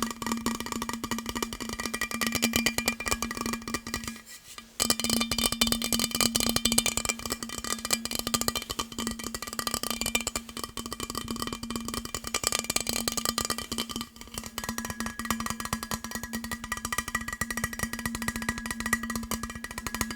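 Very fast tapping on hard items, a dense run of clicks with steady ringing tones under them. It stops for about half a second roughly four seconds in.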